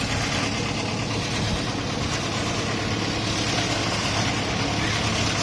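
Wood shaving machine running steadily: a constant motor hum under an even rushing noise.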